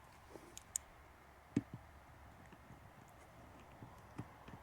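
Faint, scattered clicks and light knocks of a screwdriver working the mounting screws of a camera housing, the loudest about one and a half seconds in.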